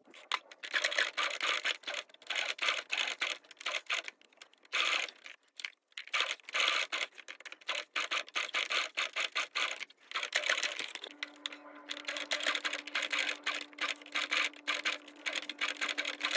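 Domestic sewing machine stitching felt, a rapid needle clatter in runs that stop and start. From about two-thirds of the way in, a steady motor hum sits under the stitching.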